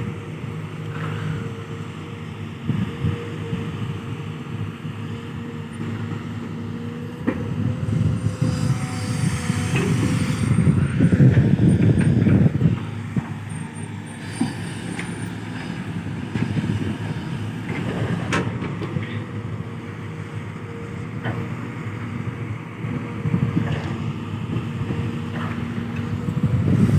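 Kobelco SK210-8 Super XM long-reach excavator's diesel engine running under load as it digs, with a steady whine, growing louder about a third of the way in and again near the end. A few sharp knocks break in.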